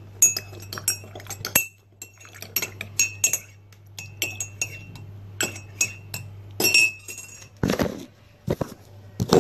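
A spoon stirring tea in a ceramic mug, clinking against the inside of the mug in quick, irregular taps, each with a short ringing note. Near the end come a couple of louder, duller noises.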